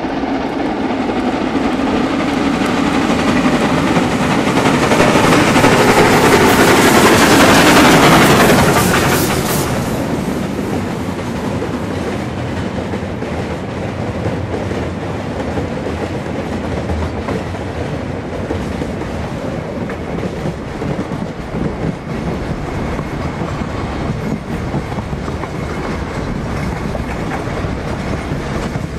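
NRZ class 14A Beyer Garratt articulated steam locomotive working a freight train past, loudest about eight seconds in, its sound falling in pitch as it goes by. Then the freight wagons roll past with a steady clickety-clack of wheels over the rail joints.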